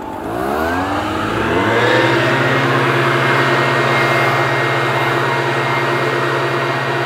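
Leaf blower throttled up over about two seconds, its pitch rising, then running steadily at high speed with a loud hiss of rushing air.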